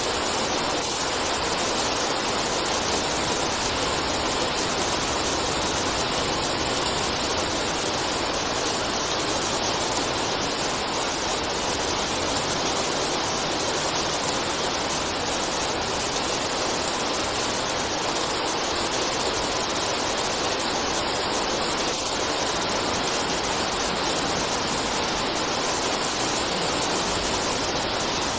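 Rain falling steadily, an even hiss that stays the same throughout.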